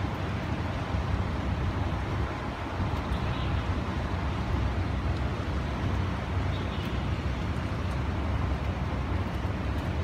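Strong typhoon wind blowing steadily, with a heavy low rumble of wind on the microphone.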